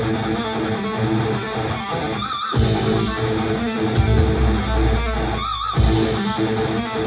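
Rock music with electric guitar and bass playing loud through Soundcore portable Bluetooth speakers at 80% volume, with brief breaks about two and a half and five and a half seconds in.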